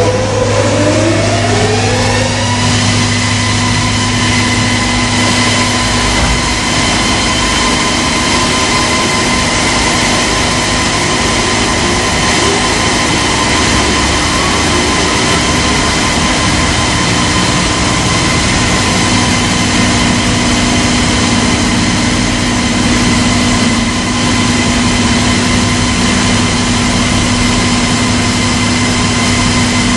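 Weber KLE 2000 wide belt sander running with a loud, steady hum and whine. Over the first couple of seconds a whine rises in pitch, then holds steady.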